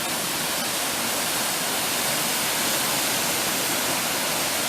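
A waterfall about 71 feet tall in full flow, a steady, even rush of falling water.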